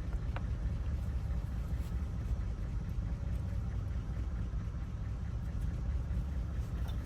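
Steady low rumble like a running engine, with a faint small click under half a second in as two lock wafers are being swapped in the cylinder.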